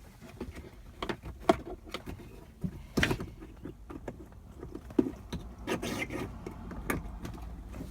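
Irregular clicks and knocks from handling equipment and cables, the sharpest about a second and a half, three and five seconds in, over a low steady rumble.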